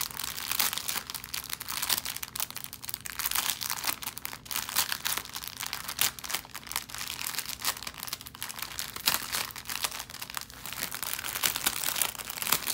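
Clear plastic packaging of bagged diamond-painting drills crinkling as it is handled: a continuous dense crackle of small crisp clicks.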